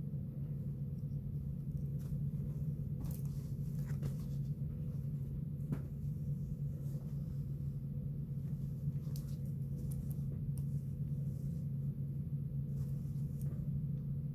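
A steady low hum, with faint scattered rustles and soft taps from a fabric hand puppet being handled.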